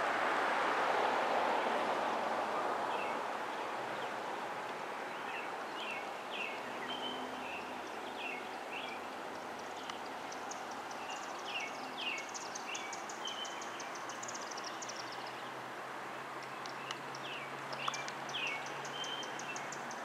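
A rushing noise that dies away over the first few seconds, then small birds chirping repeatedly, with quick high trills and short falling calls, over steady background noise.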